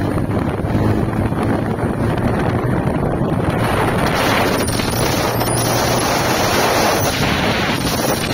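Small motorcycle engine running at road speed, with wind buffeting the microphone. The wind rush grows much louder about three and a half seconds in.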